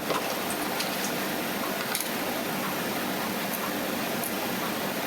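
Steady fan-like background hiss with a few faint, light clicks scattered through it.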